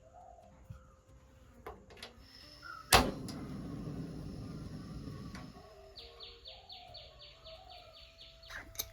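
Birds calling in the background, ending in a rapid trill of about a dozen short descending chirps. About three seconds in there is one sharp knock, the loudest sound, followed by a couple of seconds of low rustling.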